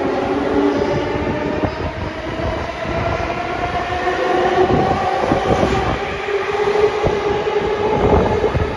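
JR East 209 series 500 subseries electric train pulling out of a station and gathering speed, its VVVF inverter and traction motors whining in a pitch that climbs, drops back and climbs again as it accelerates, over the rumble and clatter of its wheels on the rails.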